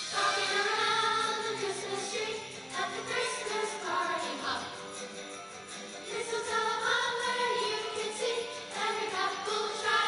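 Middle-school choir singing a Christmas song in several voices.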